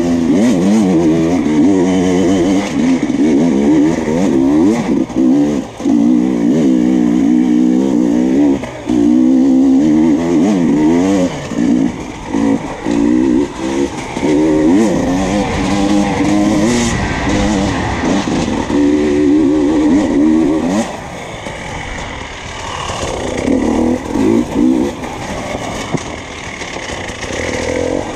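Enduro dirt bike engine revving up and down hard as the throttle is opened and closed, with short dips between bursts. From about 21 seconds in it drops to lower, quieter revs, with one more brief burst a couple of seconds later.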